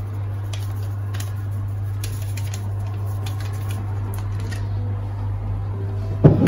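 Light scattered ticks and rustles as a sachet of baking powder is added to flour in a mixing bowl, over a steady low electrical hum.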